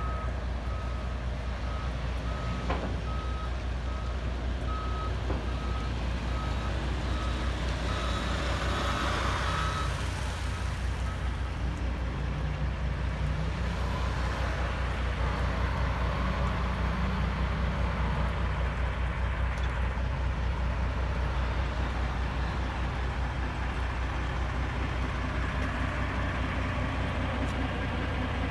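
Diesel semi truck idling steadily. A repeated high electronic beep, like a reversing alarm, sounds over it and stops about eleven seconds in.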